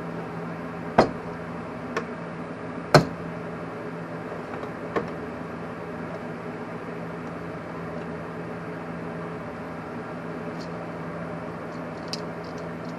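A few sharp knocks and clicks of tools being handled on the bench, the loudest about three seconds in, over a steady low hum.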